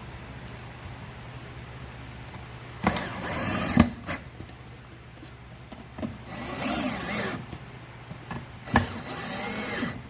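Cordless electric drill driving screws into solid wood: three short runs of the motor about a second each, its pitch shifting as each screw goes in, with sharp knocks at the end of the first run and the start of the last.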